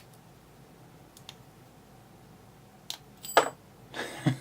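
Lock-picking tools working the serrated pins of a Brinks 642 padlock: a few faint clicks, then a louder metallic clack about three seconds in and handling noise near the end.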